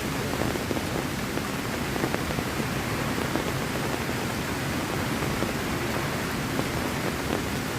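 Heavy rain falling steadily, a dense even hiss with many small drop impacts scattered through it.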